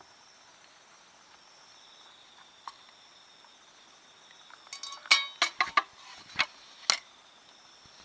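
Night insects trilling steadily and faintly, with a quick run of sharp clinks and knocks about five seconds in, the first of them ringing briefly.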